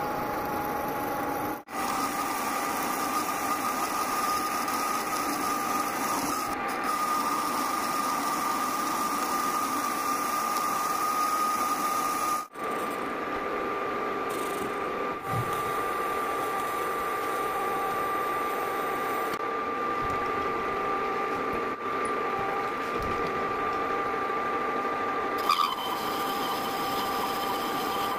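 Metal lathe running at a steady speed with a constant whine while it drills and then turns a metal bar. The sound drops out briefly twice.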